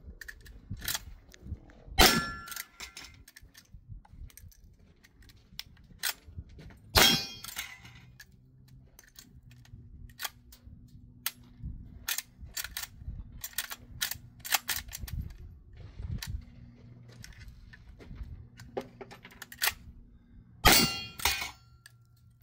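Three shotgun shots at steel knockdown targets, about two, seven and twenty-one seconds in, each sharp and ringing. Between the shots come small clicks and clacks of the gun being worked and reloaded.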